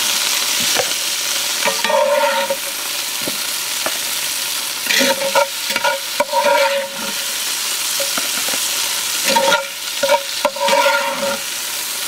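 Chicken pieces sizzling in hot bacon grease in a cast-iron Dutch oven, with a spatula scraping against the pot in several bursts as the pieces are scooped out.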